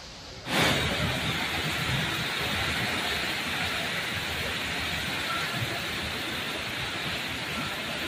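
Torrential rain driven by strong wind: a steady, dense hiss of downpour that comes in abruptly about half a second in, after a quieter wash of rain.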